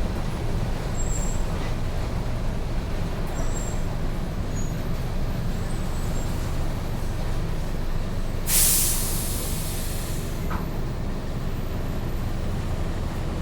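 Mercedes-Benz OF-1722M city bus running with a steady low engine rumble. About eight and a half seconds in, a loud hiss of compressed air from the air brakes lasts about a second and a half.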